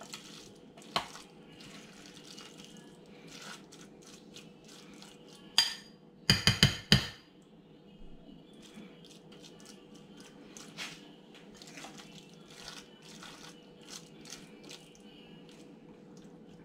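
A metal spoon scraping and clinking against a ceramic bowl while flaked tuna mix is stirred, with light scattered clicks and a quick run of louder clinks about six seconds in. A faint steady hum runs underneath.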